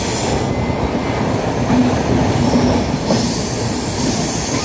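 Passenger train running at speed, heard from inside the coach: a loud, steady rumble of wheels on the track with rattling clatter.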